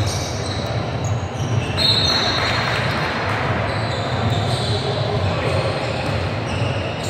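Basketball game on a hardwood gym floor: the ball being dribbled and sneakers squeaking in short high chirps, the clearest about two seconds in, over a steady background of voices in the echoing gym.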